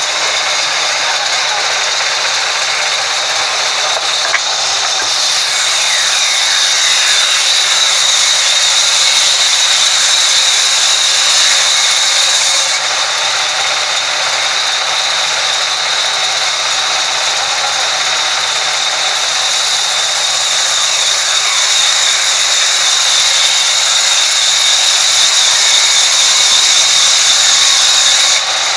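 Sawmill band saw cutting lengthwise through a large log: a loud, steady high whine over the rushing noise of the blade in the wood.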